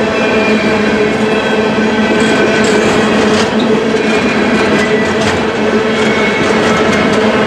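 Empty steel coal hopper cars of a freight train rolling past: a steady rumble and rattle of wheels on rail with a held ringing tone, and a few sharp clicks about halfway through.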